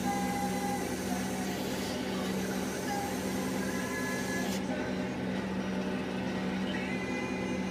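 Cat 988H wheel loader's diesel engine running steadily as the machine drives, heard from inside the cab as a steady low drone. A high hiss over it stops abruptly about four and a half seconds in.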